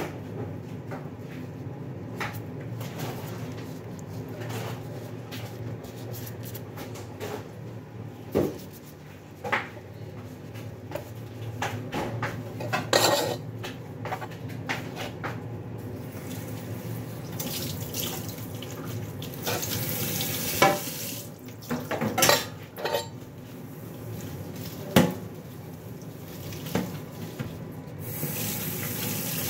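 Kitchen work: scattered knocks and clatters of dishes and utensils over a steady low hum, with water running from a tap in short spells in the second half and again near the end.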